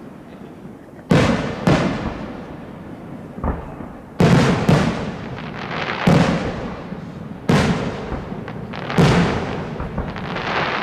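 Aerial firework shells bursting one after another, about eight to nine sharp bangs roughly a second or two apart, each trailing off over a second or so.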